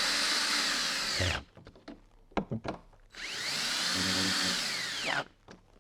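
Power drill-driver tightening the lock's fixing screws in two runs, the first about a second and a half and the second about two seconds. The motor's pitch rises as each run starts and falls as it ends, with a few light clicks in between.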